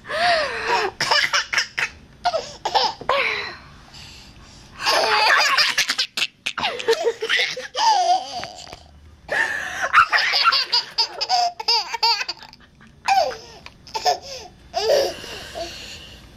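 Baby girl laughing in about half a dozen high-pitched bouts of giggles, with short pauses between them.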